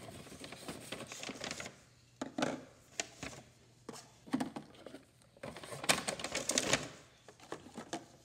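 Cardboard play food boxes being handled and packed into a paper grocery bag: irregular bursts of paper rustling and light cardboard knocks and clicks, the busiest about six seconds in.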